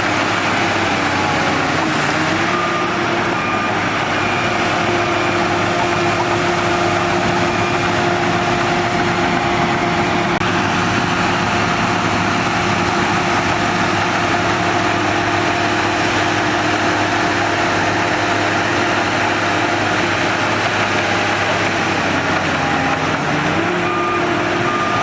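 Shantui DH17 bulldozer's diesel engine running steadily under work, its pitch dipping briefly twice. A reversing alarm beeps about once a second for a few seconds near the start and again near the end as the machine backs up.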